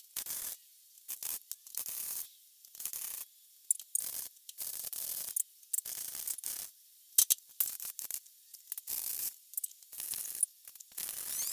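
MIG welder laying short welds on a steel bracket: a crackling hiss that starts and stops about a dozen times, each burst under a second or so.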